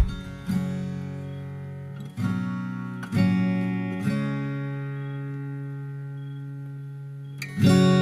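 Background music: an acoustic guitar strumming chords and letting each one ring out and slowly fade, with a new chord struck every second or so early on, then one left ringing for several seconds before a louder strum near the end.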